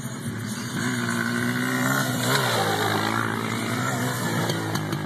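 Quad bike (ATV) engine revving as it rides past close by, the engine note climbing and then dropping away.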